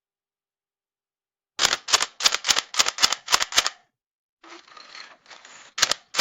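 Camera shutter clicking in quick succession: about a dozen sharp clicks, mostly in pairs, starting about a second and a half in. A softer, rougher mechanical stretch follows, and then a few more clicks near the end.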